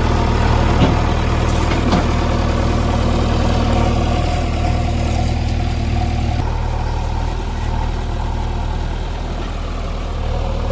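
Heavy vehicle engine idling steadily with a low, even hum.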